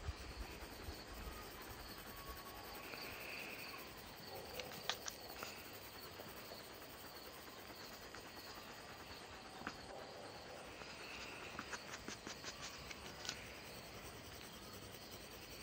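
Faint graphite pencil scratching on paper while shading a sketch, with short runs of quick, ticking strokes about a third of the way in and again near the end.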